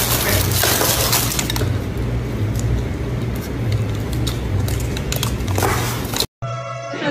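Paper food wrapper crinkling and rustling loudly as a burger and fries are unwrapped and handled, with sharp clicks and squishes of the plastic grabber tools and the food. It cuts off suddenly about six seconds in.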